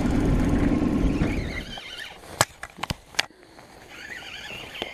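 Boat engine running, then shutting down as the boat reaches its fishing spot, dying away about a second and a half in. A few sharp knocks follow a moment later.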